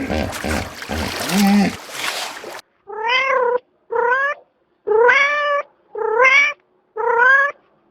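A domestic cat meowing five times, about once a second, each meow short and pitched with a slight rise and fall. Before the meows, for about two and a half seconds, a different noisy sound with lower pitched calls runs and then cuts off abruptly.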